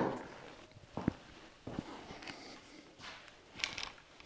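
Handling noise from a tripod being taken off a rack and carried: a knock right at the start, then a few faint knocks and clatters with footsteps.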